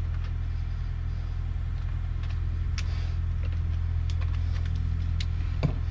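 An engine idling, a steady low rumble that does not change. A few light clicks come over it from hands working plastic wiring connectors.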